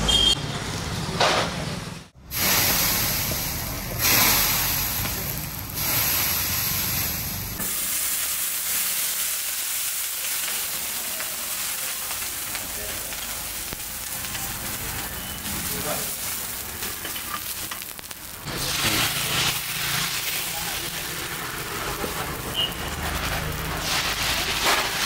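Small cast-iron dosa pans on gas burners hissing and sizzling steadily, from about a third of the way in, with faint voices behind. Before that come a couple of short cuts of other street-stall sound.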